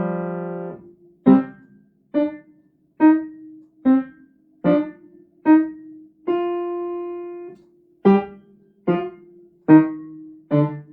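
Piano played slowly in a C minor five-finger position (C, D, E flat, F, G). A held chord opens, then single detached notes follow about one a second, with one longer held note in the middle.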